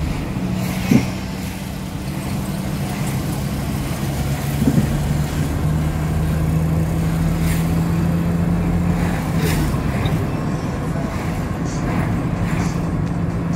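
Engine and road noise of a car driving, heard from inside the car: a steady low engine hum, with two brief knocks, about a second in and near the five-second mark.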